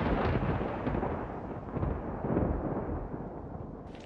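Thunder sound effect: a long rolling rumble that fades gradually, swelling once more about two seconds in, as a storm breaks.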